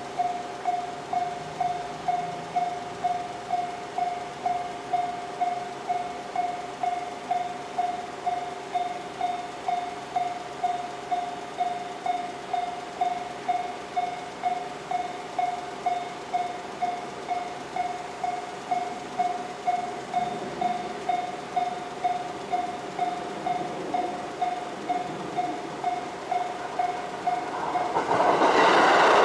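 Japanese level-crossing warning bell ringing steadily at about two strikes a second, a single unusual-sounding tone. Near the end a train's noise swells quickly as it reaches the crossing.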